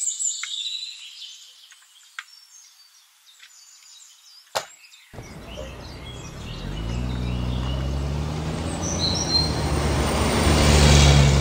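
Birds chirping, broken by a sharp click about four and a half seconds in. From about five seconds a low, steady engine-like rumble with a hum starts and grows louder towards the end.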